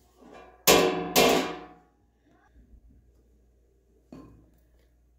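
A metal spoon clanking twice against a hard surface, about half a second apart, each strike ringing briefly; a lighter knock follows near the end.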